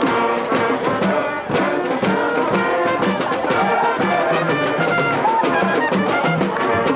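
Brass band music: trumpets and trombones playing over a steady drum beat.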